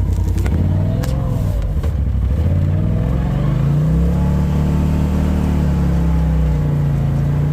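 Off-road vehicle engine running while driving, its pitch shifting up and down with the throttle for the first couple of seconds, then holding steady.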